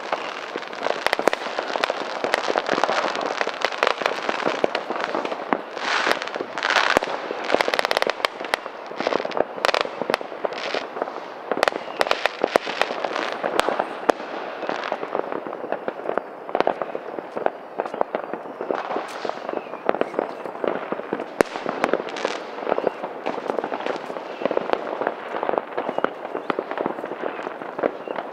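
New Year's Eve fireworks going off all around: a dense, continuous crackle of firecrackers and bursting rockets with many sharp bangs, a cluster of louder bangs about six to eight seconds in.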